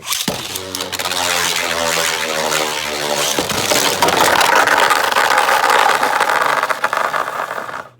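Two Beyblades, a custom 3D-printed Agèma Ares and a Savior Valkyrie, launched into a plastic stadium and spinning: a whirring hum for the first three seconds, then a louder rough scraping rattle as they clash, stopping abruptly near the end.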